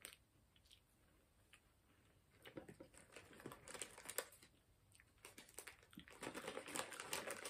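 Faint crinkling and crackling of a plastic snack packet being handled, in two spells of rapid crackle, the second starting about five seconds in.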